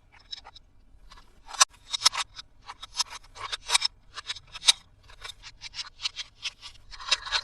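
Toy packaging being handled and opened: an irregular string of short, crisp clicks, taps and crinkles, a few to several a second.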